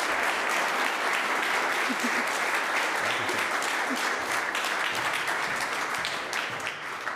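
Audience applauding, dense steady clapping from a full hall that begins to die away near the end.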